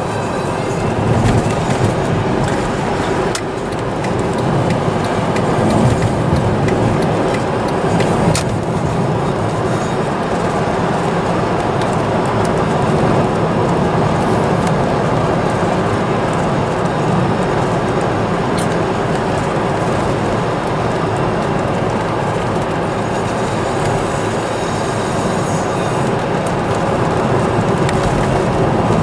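Steady rumble of a car's tyres and engine heard from inside the cabin while driving at road speed, with a few light clicks.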